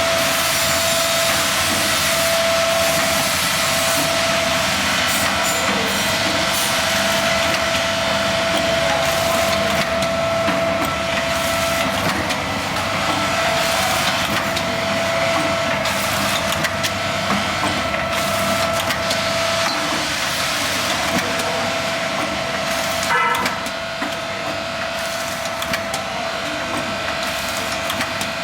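Pneumatic piston filling machine running: a steady whine over continuous hiss, with scattered clicks. A short clatter comes about 23 seconds in, after which it runs a little quieter.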